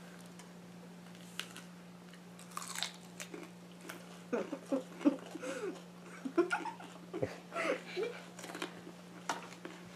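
Children biting into and chewing raw hot peppers: crunching and wet mouth noises in short, irregular spurts, thickest from about four seconds in, over a faint steady hum.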